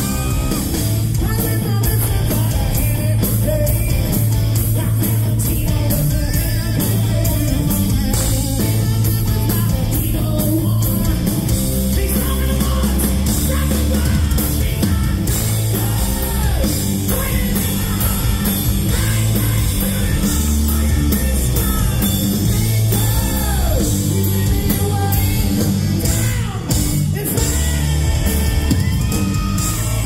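Hard rock band playing live: a male lead singer over distorted electric guitars, bass and drums, loud and steady throughout.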